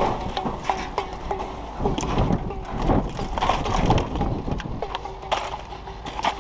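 Irregular clanks and knocks, with a few brief squeaks, over a steady low rumble.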